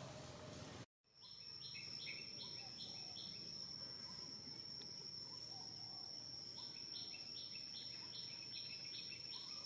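Outdoor insect sound: a steady high-pitched insect drone with two runs of evenly spaced chirps, about three a second, the second run starting past the middle. The sound drops out for a moment about a second in.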